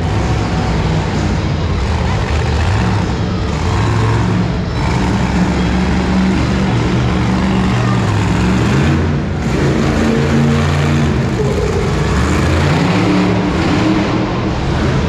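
Monster truck engine running loud and revving, its pitch climbing and dropping again and again.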